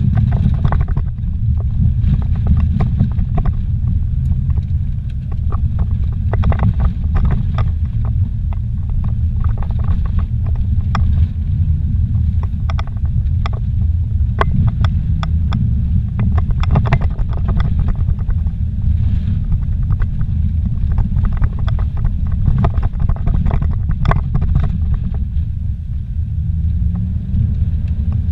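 Inside a car driving on a dirt road: a steady low rumble of engine and tyres, with frequent short knocks and rattles as it goes over the rough surface.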